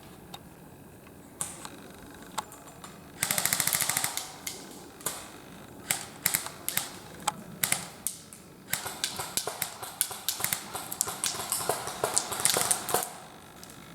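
Airsoft guns firing: a fast full-auto burst about three seconds in lasting about a second, then scattered single shots and short bursts of sharp clicky reports.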